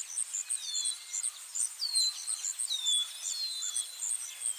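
Nature ambience: insects chirping in a rapid, steady high pulse, with a bird calling in short whistles that slide down in pitch, about five of them.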